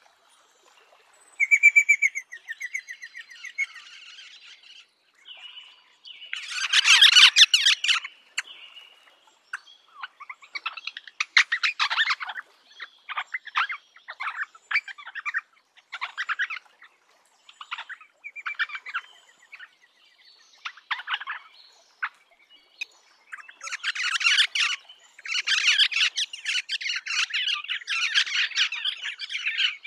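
Rosella calling: a short whistled trill near the start, then a run of quick chattering calls with pauses between them, the loudest burst about seven seconds in, and a long unbroken stretch of chatter near the end.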